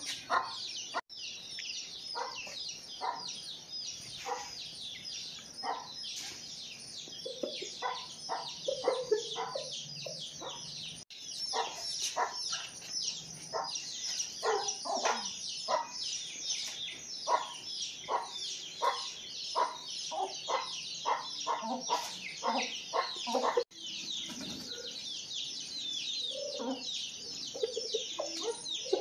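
Chickens clucking in short, repeated calls over a constant layer of high chirping.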